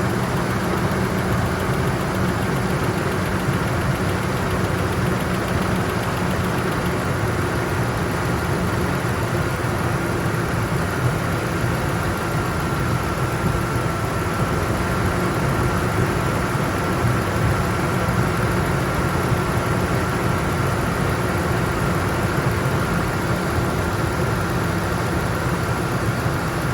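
Ford 4.6-litre V8 of a 1998 F-150 idling steadily on fresh oil and new filters after an engine flush, run to check for its startup tick. A thin, steady high tone sits over the engine sound.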